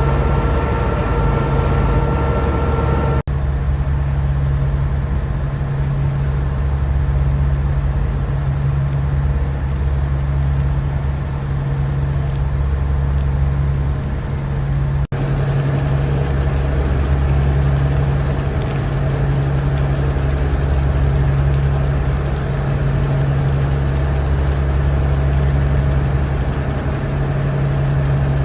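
Engines of the Ro-Ro car ferry KMP Lome droning steadily while under way, a loud, even low hum. The sound cuts out for an instant twice, about three and fifteen seconds in.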